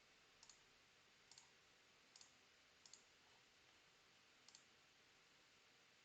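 Faint computer mouse clicks: five of them about a second apart with a longer gap before the last, each a quick pair of ticks from the button going down and up, while picking tapped holes in the software.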